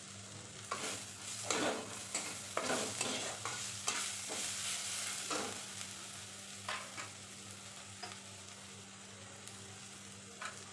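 Steel spatula scraping and stirring an onion-tomato masala frying in a nonstick pan, over a soft sizzle. The scrapes come about once a second for the first half, then thin out to a few light strokes.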